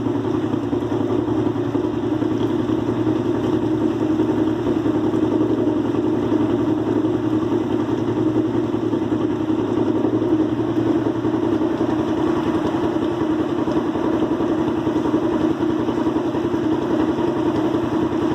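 An engine idling steadily, with a fast, even pulse. A deeper hum under it drops away about twelve seconds in.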